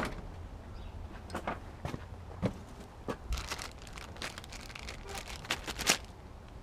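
Scattered clicks, knocks and rustling of tools and parts being handled during work on the truck, with a loud knock at the very start, a run of quick clicks from about three seconds in, and another loud knock near the end.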